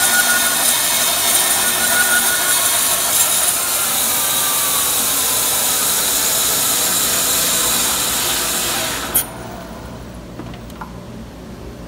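Wood-Mizer band sawmill blade running through a log, a steady loud saw noise. The damaged blade is diving, pulling down against the anti-dive guide blocks. About nine seconds in the cut is stopped with a click, and the sound drops to a much quieter steady hum.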